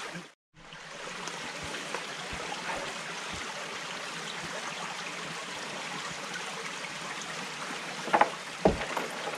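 Shallow rocky mountain stream flowing steadily. Near the end, a few sharp metallic clinks and knocks as the hanging pot's lid is handled.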